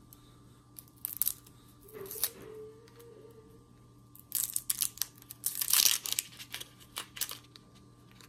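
Dry, papery skin of a red onion being peeled off by hand, crackling and tearing in short bursts. The bursts come thickest and loudest a little past halfway through.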